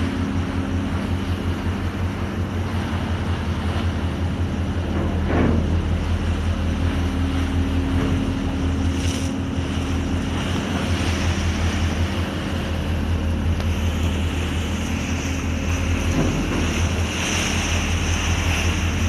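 A boat's engine droning steadily at a constant pitch, with wind buffeting the microphone.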